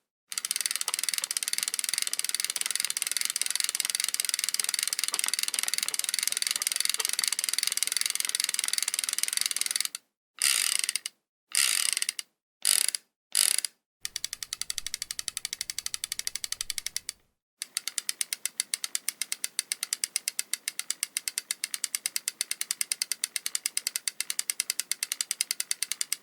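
Fishing reel ratcheting: a fast, continuous run of clicks for about ten seconds, then four short bursts of clicking with brief silences between them. After that comes a quieter stretch, and finally a steady run of rapid, evenly spaced clicks.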